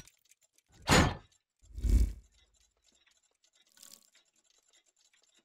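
Logo-intro sound effects for animated clockwork gears: two short, loud, noisy hits about a second apart, the second with a heavy low thud, then a faint short click just before four seconds in.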